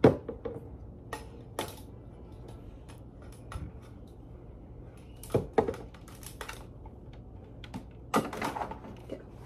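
Irregular clicks and knocks from a ring light being adjusted and handled, in small clusters near the start, about five to six seconds in, and near the end.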